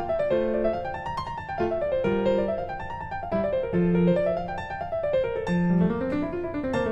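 Background piano music: flowing arpeggios that climb and fall in repeated waves.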